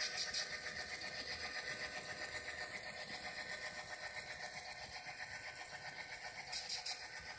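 DCC sound decoder in a model SD9 diesel locomotive playing its engine sound at low throttle, a faint steady chugging with a held whine, through the locomotive's small speaker. A brief hiss sounds right at the start and again near the end.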